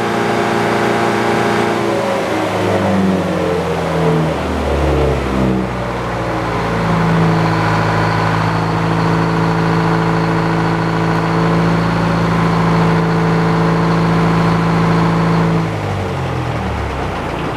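The engine driving an old Frick sawmill is running. Its pitch drops a few seconds in, holds steady for several seconds, then drops again near the end.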